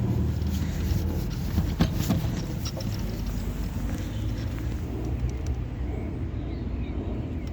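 Steady low rumble of outdoor background noise, with a few small clicks about two seconds in.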